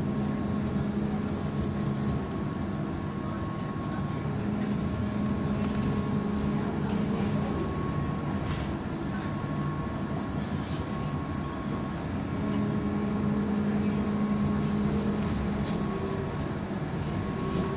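Göteborgs Spårvägar M31 tram running, heard from inside the car: a steady rumble of wheels on rail, with a low motor hum that swells in three stretches and a few short clicks.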